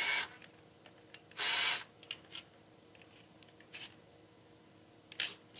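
Brief rustling handling noises, one right at the start and a louder one about a second and a half in, followed by a few light clicks, as hands hold and work the RC transmitter. A faint steady hum lies underneath.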